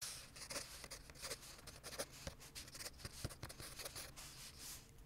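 Wooden pencil writing on lined notebook paper: a faint, irregular run of short scratching strokes as the letters are formed.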